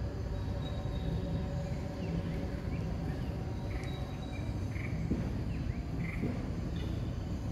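Steady low outdoor rumble with faint insect calls: a thin high drone comes and goes, and a few short chirps come in the second half.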